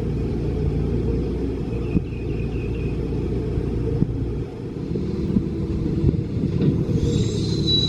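Hidromek 102B backhoe loader's diesel engine running with a steady low rumble, with a few sharp knocks. A thin high whine comes in near the end.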